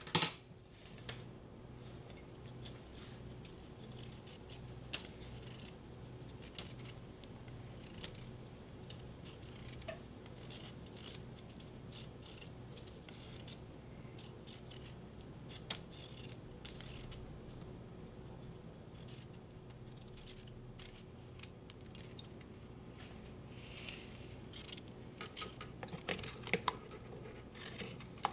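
A small kitchen knife peeling a raw potato by hand, with repeated short, faint scraping strokes of the blade through the skin and a few sharper clicks. Near the end, the strokes grow denser as the potato is cut into chunks over the pot.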